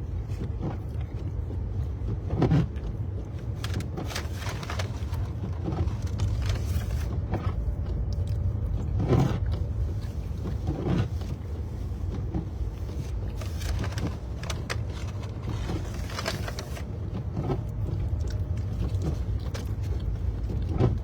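Steady low road rumble of a car heard from inside the cabin while driving, with scattered brief clicks and knocks.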